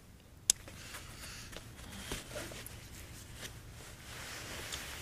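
Gloved hands handling fishing line and tackle while re-rigging with a heavier jig: rustling of gloves and jacket and scattered small clicks, with one sharp click about half a second in.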